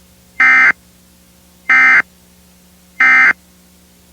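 Emergency Alert System end-of-message signal: three short, identical bursts of SAME digital data tones, about a second and a quarter apart, marking the end of the alert. A faint steady hum sits underneath.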